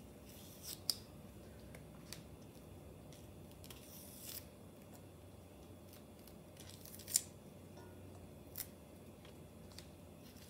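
Scallions (green onions) being peeled by hand: a few faint, crisp rips and crackles as the thin outer layer is pulled off the stalks, with quiet between them.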